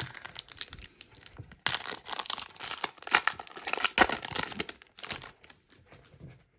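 Foil trading-card pack wrapper crinkling and tearing as it is opened, a dense crackling that dies away about five seconds in.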